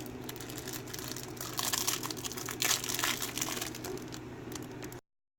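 Close crinkling and rustling handling noise, loudest two to three seconds in, over a low steady hum; the sound cuts off abruptly near the end as the recording stops.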